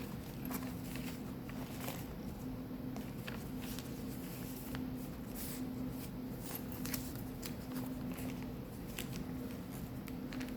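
Pages of a handmade junk journal and its loose paper ephemera being turned and handled: scattered soft paper rustles and light taps over a steady low hum.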